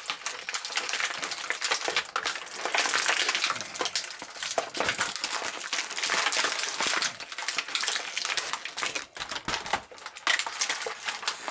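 Stiff plastic packaging crackling, crinkling and clicking as a Super Hero Mashers action figure's fist is pried out of it. A long, noisy run of rapid crackles with a few brief pauses.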